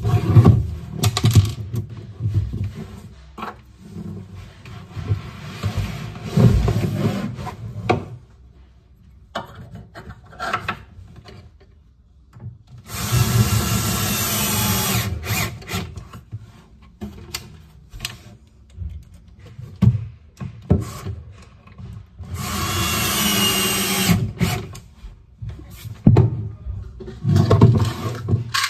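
Compact cordless drill-driver running in two steady runs of a few seconds each, midway and later, driving screws with a whine, with handling knocks and clatter of parts in between.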